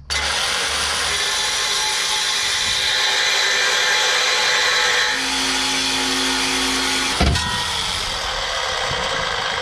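Reciprocating saw cutting through the car's exhaust pipe ahead of the rear silencer (back box), running steadily, with a knock about seven seconds in.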